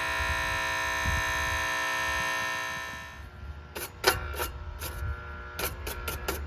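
Air-conditioner condenser contactor humming steadily at mains pitch, a hum the technician treats as a reason to replace the contactor. The hum dies away about halfway through. It is followed by a run of short, irregular scraping strokes.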